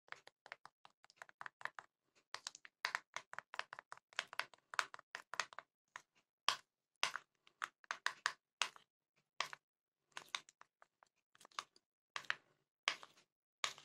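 A spoon clicking and scraping against a ceramic bowl while flour is stirred into oil to make a thick paste. The clicks come quickly and close together for the first six seconds or so, then slow to scattered single taps.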